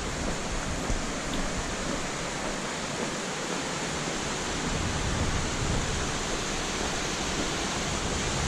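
Steady rushing of the Gooseberry River's falling water, an even roar with no break.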